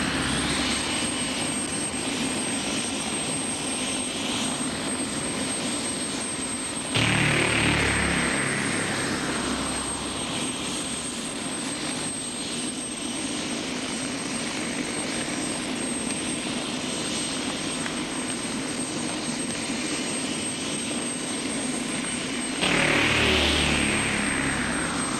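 Jet airliner engines on an airport apron: a steady rush of engine noise with a low hum. About seven seconds in and again near the end, the level jumps and a high whine falls away over a couple of seconds.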